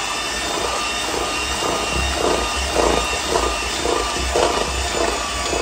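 Electric hand mixer running at a steady whine, its beaters churning a thick rice-flour batter in a stainless steel pot, with irregular scraping clatter as the beaters hit the pot.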